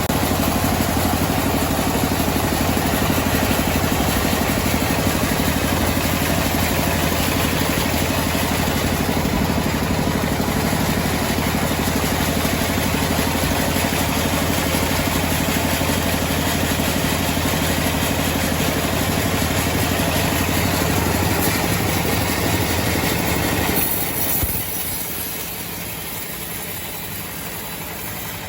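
Engine-driven homemade sawmill running steadily while sawing a large teak log. The sound drops clearly quieter about 24 seconds in.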